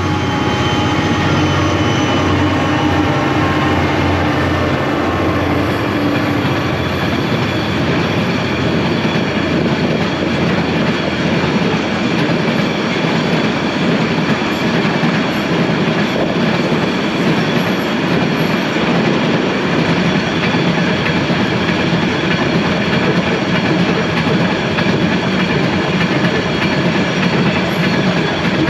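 Narrow-gauge freight train passing close by: the diesel locomotives' engines run through the first few seconds with their pitch falling as they go by. After that comes a long, steady rumble and clatter of wagon wheels rolling along the rails.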